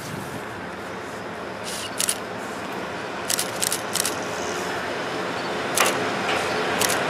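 Kominato Railway KiHa 200 diesel railcar approaching slowly, its engine and running noise growing steadily louder. Sharp camera shutter clicks go off close by, a few at a time.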